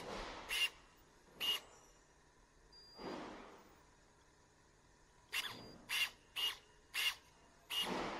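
Cordless electric pruning shears with a 150 W brushless motor driving the steel blade open and shut in quick strokes, cutting nothing: short whirring bursts with a high whine, three early, a longer one about three seconds in, then a quick run of about six near the end.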